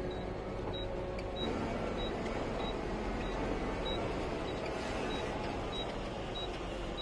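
Mahindra Blazo truck's diesel engine running, heard from inside the cab, getting a little louder about a second and a half in. A short high tick repeats about every 0.6 seconds over it.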